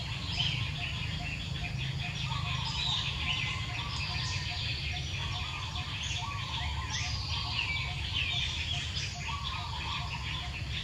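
Several birds chirping and calling, with repeated short downward-sliding chirps and a wavering lower call every couple of seconds, over a steady low rumble.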